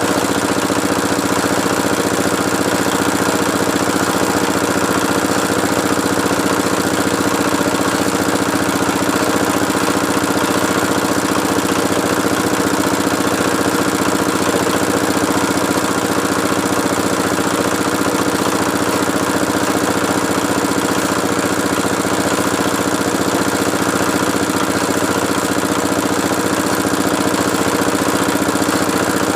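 Engine of a water-well drilling machine running steadily at a constant speed.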